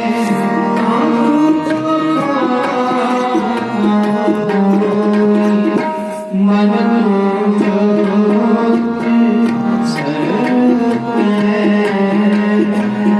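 Kirtan accompaniment of harmonium and tabla playing an instrumental passage: sustained reed chords and melody over a steady tabla rhythm.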